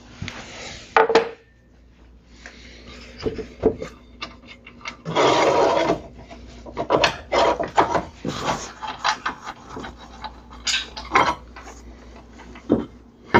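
Knocks, clunks and rubbing from hands working on a miter saw and handling pieces of wood, with about a second of scraping near the middle. The saw's motor is not running.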